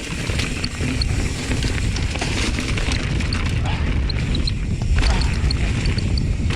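Mountain bike rattling and knocking as it rolls over a rocky trail, with steady wind rumble on the helmet camera's microphone.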